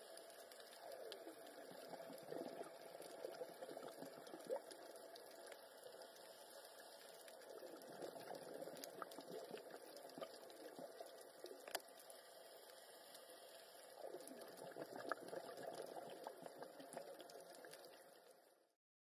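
Scuba regulator exhaust bubbles heard underwater: three spells of bubbling about six or seven seconds apart, one per exhaled breath, over a steady hiss with a few faint clicks. The sound cuts off near the end.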